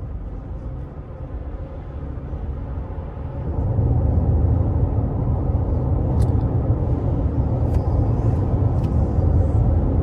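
Road and tire noise heard inside the cabin of a RAV4 running on Toyo Open Country AT3 all-terrain tires: a steady low rumble that builds and gets louder about three and a half seconds in.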